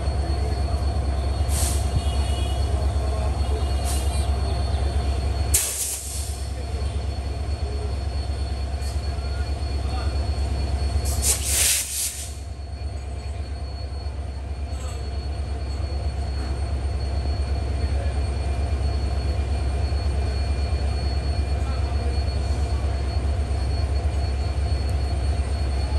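Indian-built WDM-3A diesel-electric locomotive running with a steady low drone as the train approaches, broken by short bursts of noise a few times, the loudest at about six and twelve seconds in.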